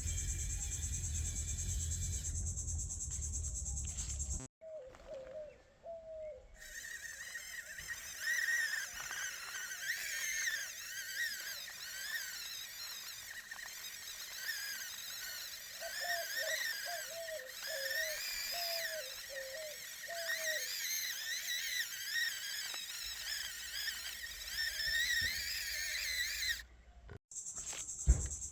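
Outdoor nature sounds of insects chirping and birds calling, broken by abrupt cuts twice.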